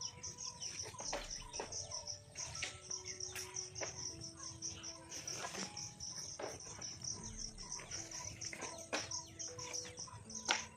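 Insects chirping in a rapid, even, high-pitched pulse, with scattered bird chirps. Soft background music of held notes plays underneath.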